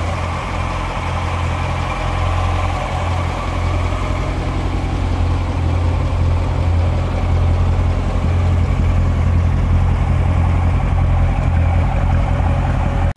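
C7 Corvette's 6.2-litre V8 idling steadily, a low even running sound with no change in revs.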